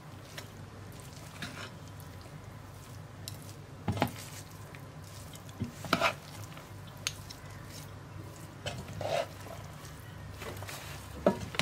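A spoon being stirred through cooked biryani rice in a large metal pot, with a few short knocks and scrapes against the pot's side and bottom, over a low steady hum.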